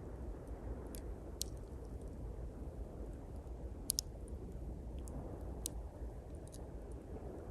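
Small fire of thin pine twigs crackling, with scattered sharp pops and a quick double pop about four seconds in, over a steady low rush of sea waves.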